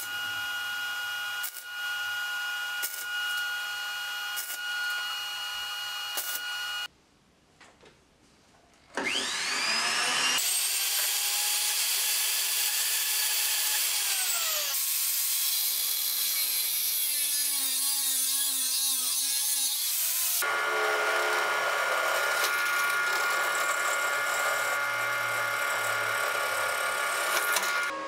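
Metalworking power tools in a string of separate takes. A steady machine sound with scattered clicks runs for about seven seconds and stops. After a short gap, a hand-held high-speed rotary tool winds up with a rising whine and runs at a high steady pitch. It then grinds steel, its pitch wavering under load, and another steady tool sound takes over for the last several seconds.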